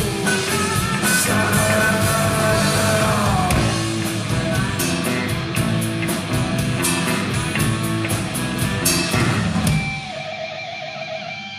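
Live rock band playing an instrumental passage: electric guitar, electric bass, drum kit and saxophone. About ten seconds in, the full band drops out, leaving a single held note.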